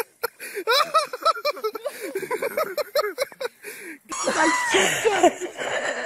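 People laughing and calling out excitedly. About four seconds in, the sound cuts abruptly to a scuffling, rustling noise with a cry that rises and falls.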